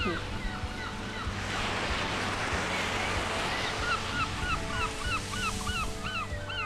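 Sea waves washing onto a beach, swelling to a rush in the middle and falling back, over soft background music. Gulls give short calls over and over before and after the surge.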